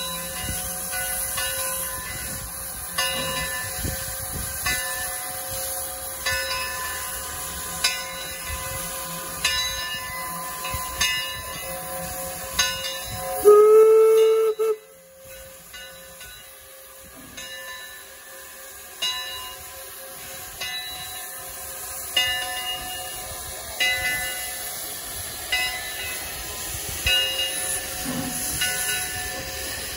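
Eureka & Palisade No. 4, a 4-4-0 steam locomotive, standing and hissing steam, with one short blast of its steam whistle about halfway through that rises slightly in pitch and cuts off abruptly.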